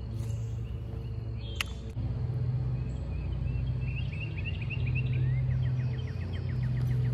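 A low, steady engine hum, the loudest sound throughout. Birds chirp over it from about four seconds in, and there is one sharp click about one and a half seconds in.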